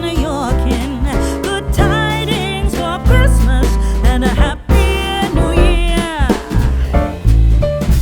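Background pop music with a sung melody over a steady bass line.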